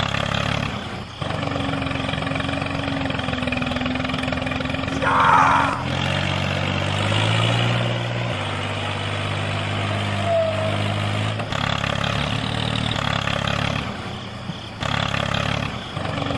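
Tractor-type engine running steadily, in several spliced stretches whose pitch changes at each cut, with a short chirp about five seconds in.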